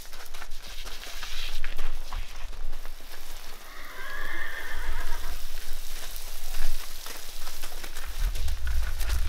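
A horse whinnies once, about four seconds in: a wavering call lasting about a second. Under it are the hiss of a garden hose spraying water and hooves shifting on gravel, with a low rumble near the end.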